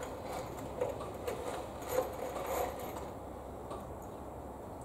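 A few light clicks and taps from small items handled in the hands, over a faint steady low hum; the clicks die away after about three seconds.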